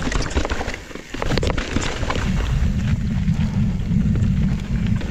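Mountain bike descending a rough granite rock slab: the tyres rumble over the rock with frequent sharp clatters and knocks, and wind buffets the microphone, easing briefly about a second in.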